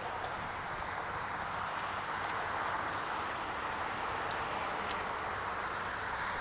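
Steady rush of highway traffic.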